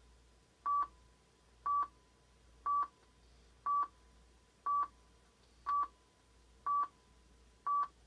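Eight short, identical electronic beeps of one steady pitch, one each second, from the countdown over a broadcast tape's slate before a TV commercial starts. A faint low hum runs underneath.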